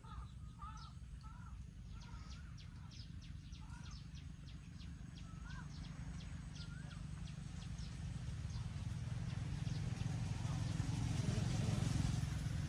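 Short bird chirps over a low rumble, then a motor vehicle's engine growing steadily louder through the second half.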